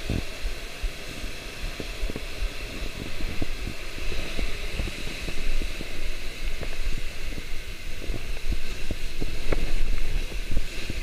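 Wind buffeting the microphone, with many small thumps, over the steady wash of sea waves breaking on rocks.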